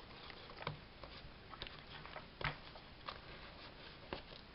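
Bone folder pressing and rubbing along the glued edges of a paper pocket on a journal page: faint scraping with about five small, sharp taps spread through it.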